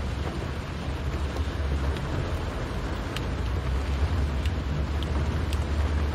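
Car cabin while driving in the rain: a steady low rumble of engine and road under a hiss of rain, with scattered small ticks of raindrops hitting the windscreen and roof.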